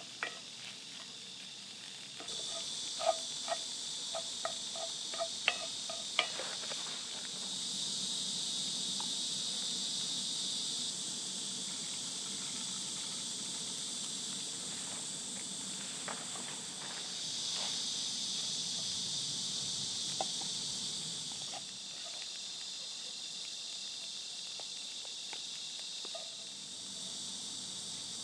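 A high chorus of insects chirring without a break, its loudness shifting up and down several times. A few seconds in comes a run of short sharp taps, about two a second.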